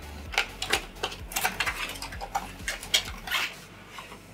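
Cardboard retail box and its clear plastic tray being handled and opened, the tray sliding out of the box: an irregular run of light clicks, taps and rustles.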